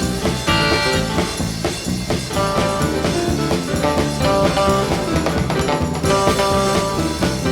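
Instrumental music with drums, guitar and brass over a steady beat.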